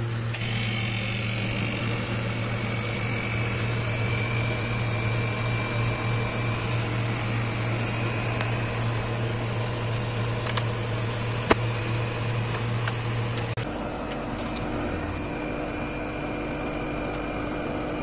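Steady electrical hum of the Voltas 320-litre deep freezer's compressor and condenser running, a low drone with a faint higher whine. About three-quarters of the way through the low drone drops out and a different, higher steady hum continues; a couple of light clicks come just past the middle.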